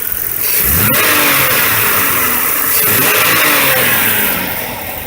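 Buick LeSabre engine revved from idle: the revs climb quickly about half a second in, hold for about three seconds, then fall back to idle near the end. The engine answers the throttle briskly after a cleaned throttle body and new intake gaskets, plugs and wires.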